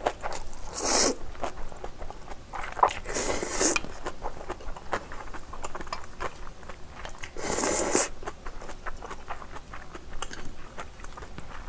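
Close-miked slurping and chewing of spicy instant ramyeon noodles: three long wet slurps, about a second in, around three seconds and near eight seconds, with small wet chewing clicks between them.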